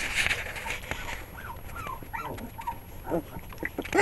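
Young pit bull puppies squeaking and whimpering as they play-wrestle: a string of short, high, falling squeaks, with a louder, lower yelp near the end.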